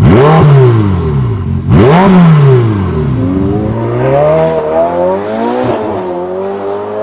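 Ferrari F8 Tributo's 3.9-litre twin-turbo V8 revved in two sharp blips through its exhaust, one at the start and one about two seconds in, each falling away quickly. After that the engine settles to a lower, wavering note.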